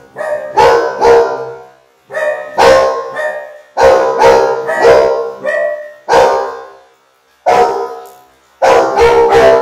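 Dog barks run through a robotic, electronic effect that gives them a buzzy, fixed-pitch tone. They come in short bursts of several quick barks, with brief silent pauses between the groups.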